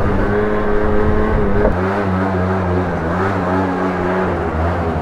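Peugeot Kisbee scooter's small engine running steadily. The sound changes abruptly about 1.7 seconds in, and the engine keeps running.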